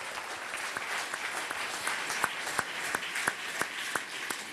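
Audience applauding: dense clapping with a few sharper single claps standing out.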